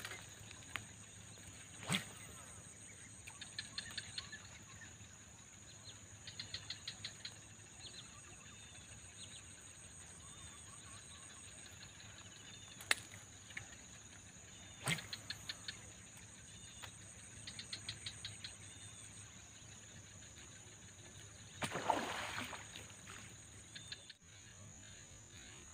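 Steady high-pitched insect drone over a rural swamp, broken by scattered sharp clicks and short rapid click series. About 22 seconds in there is a brief noisy rush.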